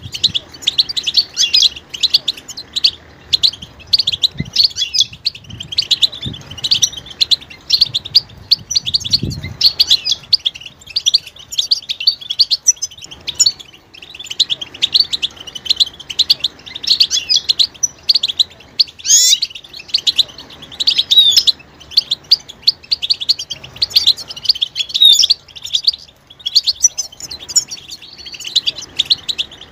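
A group of European goldfinches chattering: a dense, unbroken run of quick, high twittering call notes. These are the excited mating and readiness calls of the kind that rouse silent males to sing.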